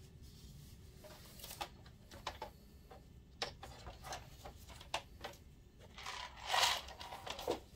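Scattered clicks and light plastic knocks from handling the opened Optoma TH1060 projector's housing and ribbon cable, with a louder scraping rustle about two-thirds of the way through.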